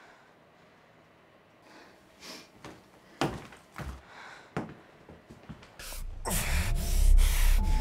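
A few short knocks, then from about six seconds in a man who has been shot gasps and groans loudly in pain.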